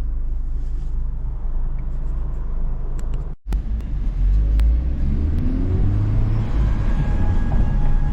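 Honda Civic Type R FL5's turbocharged 2.0-litre four-cylinder engine and road noise heard from inside the cabin while driving. After a brief dropout about three and a half seconds in, the engine gets louder and rises in pitch as the car accelerates.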